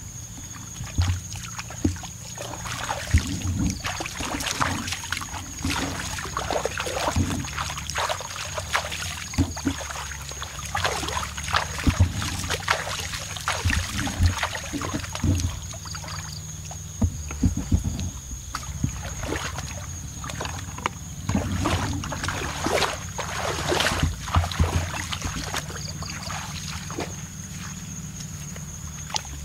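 Shallow muddy water sloshing and splashing irregularly as hands work through it, over a steady low hum.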